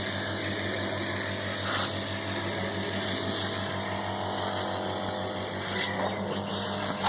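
A nebulizer's compressor running with a steady hum.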